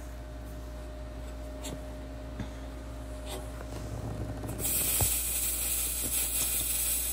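MIG welding arc striking about four and a half seconds in and then running with a steady crackling hiss, after a faint steady machine hum.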